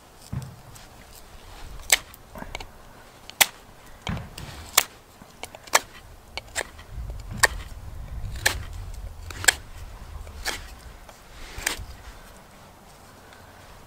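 Knife blade carving a block of pale wood: about ten sharp, crisp cuts at an irregular pace, roughly one a second, as shavings are sliced off.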